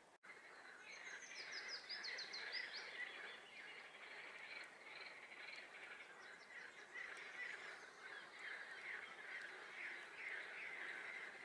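A swamp chorus of many frogs calling together, a dense, continuous chatter. A songbird sings a quick series of high falling notes over it about a second in.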